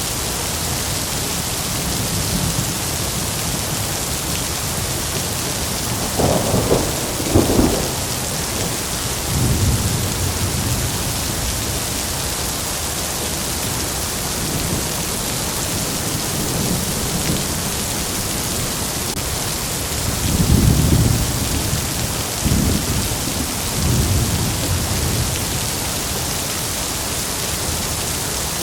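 Heavy rain falling steadily, with thunder rumbling over it: two sharper claps about six to eight seconds in, a softer roll just after, and another round of rolling rumbles in the last third.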